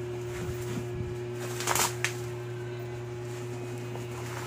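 A bubble-wrapped box being handled: a short rustle and crinkle of plastic wrap a little under two seconds in, followed by a sharp click, over a steady low hum.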